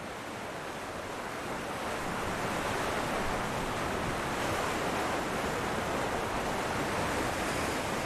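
Ocean surf: a steady wash of waves, growing a little louder over the first couple of seconds and then holding even.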